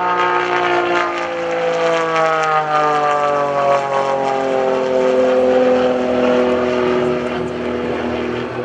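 Pitts S-1S aerobatic biplane's four-cylinder Lycoming engine and propeller droning in flight. About a second in, a higher tone rises in, then the pitch slides slowly down over the next few seconds.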